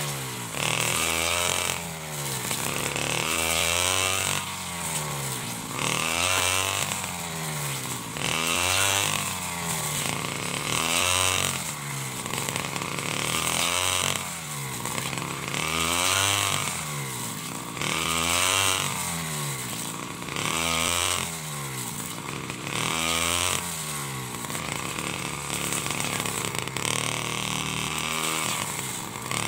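49cc side-mounted brush cutter engine running and cutting tall dry grass. Its pitch rises and falls about every two seconds as the throttle is worked, with a hiss from the cutting at each peak.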